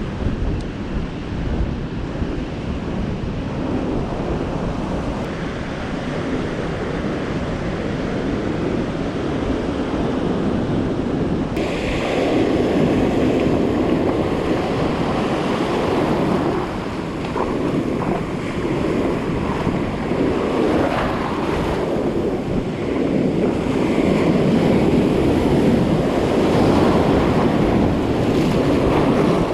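Ocean surf breaking and washing up a sandy beach, with wind buffeting the microphone. The wash is louder and closer from about halfway through.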